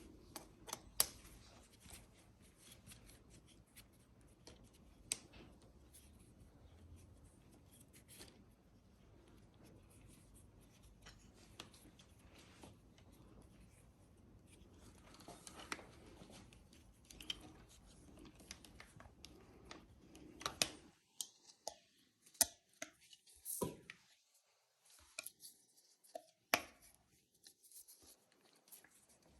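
Scattered sharp clicks and light taps of small tools and brake parts being handled while a hydraulic brake lever is fitted to an e-bike handlebar, over a low hiss that drops away about two-thirds of the way in.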